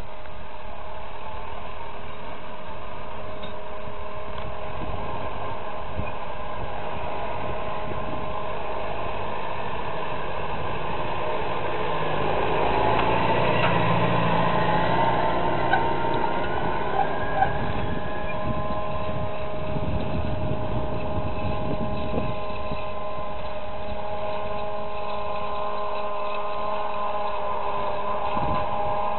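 Tractors and a tractor-drawn forage harvester running while harvesting maize: a steady engine drone with a constant high whine. It grows louder for a few seconds near the middle as a tractor pulling a trailer passes close.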